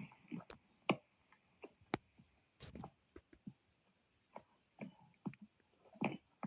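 Scattered sharp clicks and light knocks at irregular intervals, the loudest about one and two seconds in and another shortly after six seconds, with a duller thump a little before three seconds.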